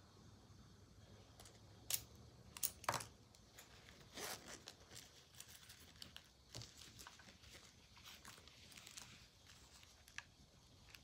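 Small plastic clicks and rustling as a lancing device and blood glucose meter kit are handled: three sharp clicks about two to three seconds in, then a rustle and lighter clicks and handling noise from the meter's fabric case.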